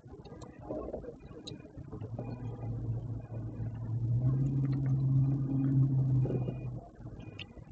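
A motor engine running with a steady low hum that grows louder for a few seconds and then stops sharply about seven seconds in.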